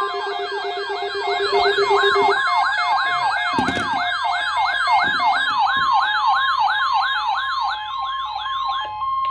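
Electronic siren in fast yelp sweeps, about three rising-and-falling cycles a second, with a low buzzing tone beneath for the first couple of seconds. The sweeps stop just before the end, leaving a steady tone.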